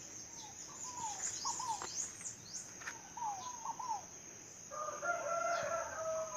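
A rooster crowing once, a long held call starting near the end, over a steady high insect drone and scattered short bird chirps.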